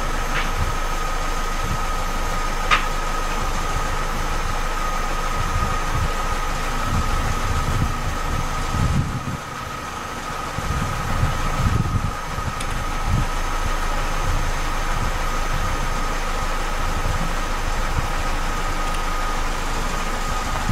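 Opel Astra H GTC idling steadily, with a constant high whine over the running noise and a single sharp click about three seconds in.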